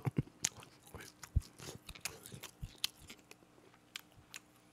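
Close-miked chewing of a mouthful of spicy grilled pork, with irregular wet mouth clicks and smacks that thin out after about three seconds, then a couple of light clicks near the end.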